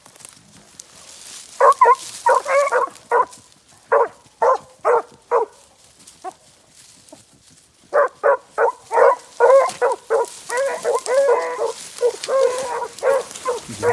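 15-inch beagle hounds giving tongue in short, repeated yelps while working a scent line through brush. They come in two quick bouts about two seconds in, a pause, then steady yelping from about eight seconds on.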